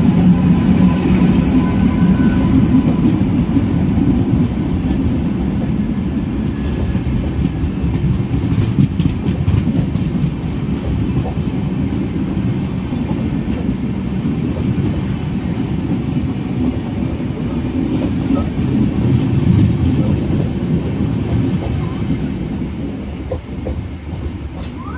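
Suburban EMU train running, heard from its open doorway: a steady low rumble with wheel clatter on the rails while another passenger train runs alongside on the next track. The noise quietens over the last few seconds.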